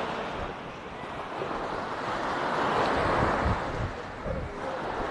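Small sea waves washing up onto a sandy beach, the surf swelling to a peak about three seconds in and easing off, with wind rumbling on the microphone.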